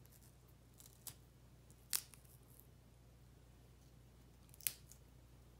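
Romaine lettuce leaves being handled and pushed onto toothpicks: three short, crisp snaps, the loudest about two seconds in and another near the end, over a faint steady hum.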